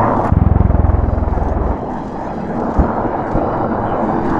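Bell UH-1Y Venom helicopter flying past low, its rotor blades beating in rapid low thumps for the first second and a half, then settling into a steadier, quieter rotor and turbine sound. A brief thump stands out near three seconds in.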